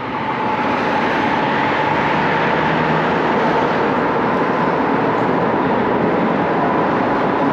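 Steady rushing wind and road noise from riding an e-bike, with a faint steady whine.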